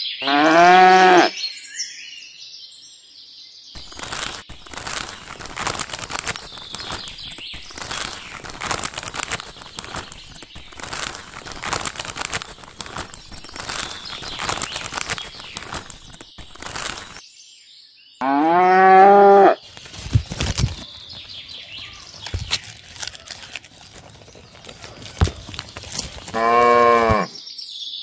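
A cow mooing three times, each moo about a second long: at the very start, about two-thirds of the way through, and near the end. In between comes a long stretch of dense crackling and rustling as chopped grass is shaken out of a cloth bag into a clay dish.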